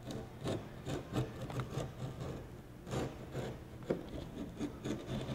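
Fingers rubbing and pressing sandpaper-like scooter griptape, a scratchy sound in irregular strokes, about two or three a second.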